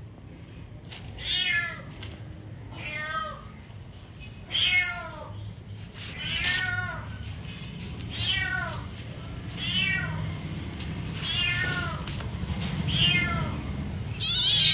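Domestic cat meowing over and over, about nine meows spaced evenly every second and a half or so, each rising and then falling in pitch.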